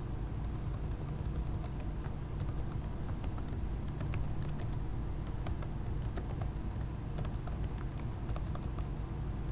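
Typing on a computer keyboard: slow, uneven key clicks as a short command is typed, over a steady low hum.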